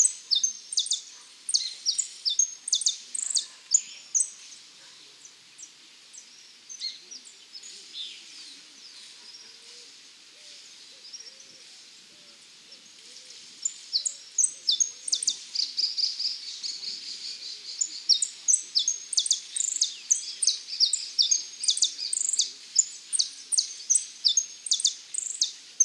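A male saffron finch (dorado) singing: rapid runs of short, high chirping notes. The song thins out to scattered notes for several seconds in the first half, then comes back as dense, continuous phrases.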